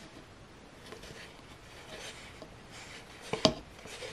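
Faint handling sounds of yarn being worked with a metal crochet hook, soft rustles and small ticks, with one sharp click about three and a half seconds in.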